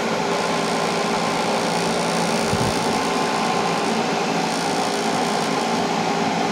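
Electric cooling fan running steadily: an even whir with a low steady hum under it.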